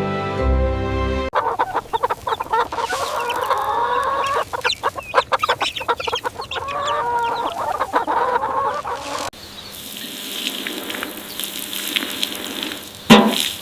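Chickens clucking in a farmyard for several seconds, with quick pecking-like clicks, after soft background music cuts off about a second in. The clucking then gives way to quieter countryside ambience with bird chirps, and one loud short call near the end.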